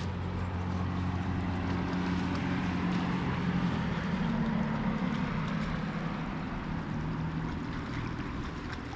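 A motor engine running steadily with a low hum whose pitch shifts slightly midway, over a hiss of wind on the microphone.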